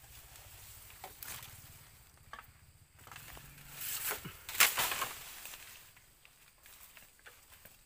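Bamboo being chopped: a few separate sharp knocks with some rustling, the loudest knock a little past halfway.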